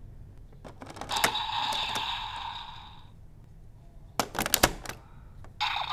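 Hard plastic clicks of a DX Vistamp toy being handled, with a short electronic sound effect that fades out; about four seconds in, a quick cluster of sharp plastic clicks as the stamp is snapped into the DX Revice Driver, whose electronic sound starts just before the end.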